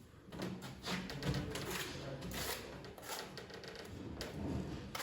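Irregular clicks, knocks and scraping from parts of a ceramic tiled fireplace being handled and fitted into place.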